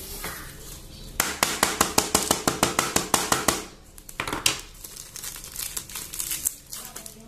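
Small sachet of ground pepper crinkling as it is handled, with a fast run of sharp crackles from about a second in to nearly four seconds, then a shorter burst and a few scattered ones.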